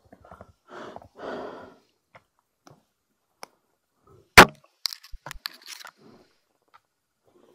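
Fishing gear being handled aboard a plastic kayak: a brief rustle, then one loud, sharp knock about four seconds in, followed by a quick run of small clicks and rattles.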